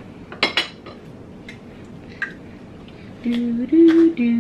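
Two quick plastic clicks from a green garlic twister chopper being handled, then a few faint ticks. Near the end a person hums a few held notes that step up and down, the loudest sound here.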